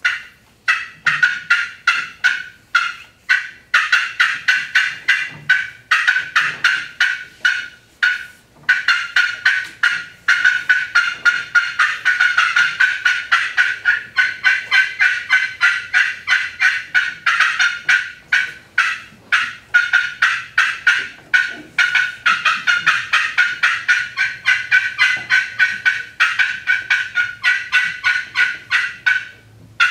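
Friction turkey call, a pot call worked with a striker, played as the cutting of an excited hen: a fast, uneven run of sharp, high clucks and cutts, a few a second, with a short break about eight seconds in.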